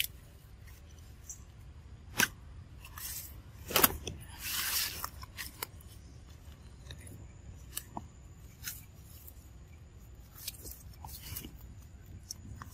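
Scattered rustles of leaves and snaps of twigs as a baby monkey moves and climbs through forest undergrowth, with sharp snaps about two and four seconds in and a longer rustle just after.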